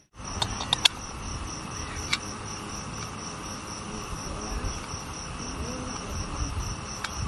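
Crickets chirping in a steady, evenly pulsing high trill. Over it come a few sharp clicks in the first second and another about two seconds in, from a gas canister being handled.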